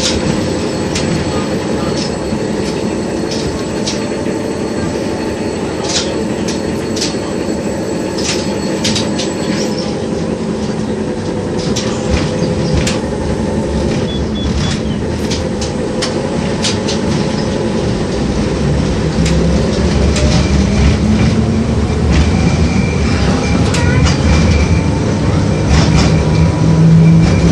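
Cabin sound of an LVS-86K tram: a steady rumble of the car running on rails, with scattered clicks and knocks. From about twenty seconds in it grows louder, and a low hum rises slightly in pitch.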